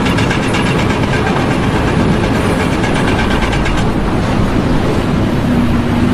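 Loud, steady mechanical rumble with a fast, even clatter over it for the first few seconds.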